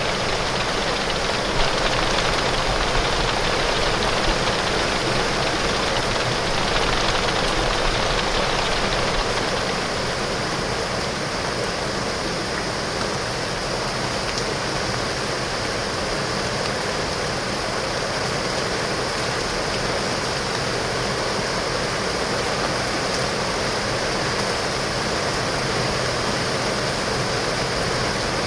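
Heavy rain falling on window glass: a steady, dense hiss of water. It eases slightly about ten seconds in.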